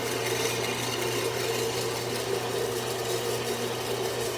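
A motor running steadily with a constant low hum and a few steady higher tones.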